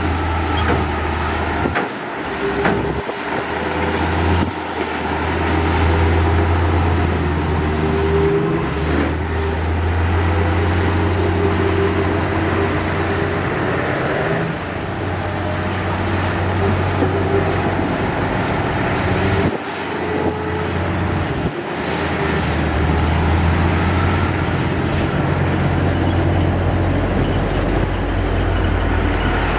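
Heavy diesel earthmoving machinery running with a steady low drone, broken several times by abrupt short gaps where the sound cuts and resumes.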